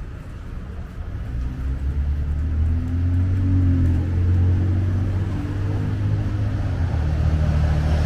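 A motor vehicle's engine running close by on the street, a low steady hum that grows louder from about a second in.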